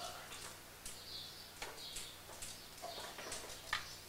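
Hushed room after laughter dies down: faint shuffling and a few small clicks and creaks from people in folding chairs, with a sharper click near the end.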